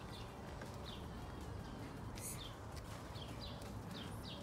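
A bird chirping over and over in short falling chirps, about two a second, over a steady low outdoor rumble.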